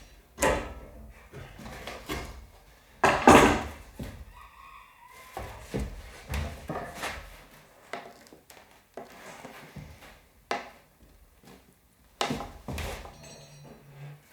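Irregular knocks, scrapes and clatter of sheet metal being bent and handled around a wheel-tub template, with one louder, longer clatter about three seconds in.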